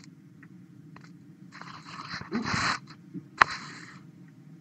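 Faint rustling, scraping noise in two short stretches, with one sharp click about two-thirds of the way through, over a steady low hum on a video-call line.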